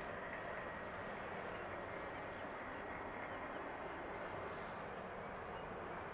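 Steady outdoor harbour background: an even low rumble and hiss with no distinct events, in which the distant ships' engines can't be picked out on their own.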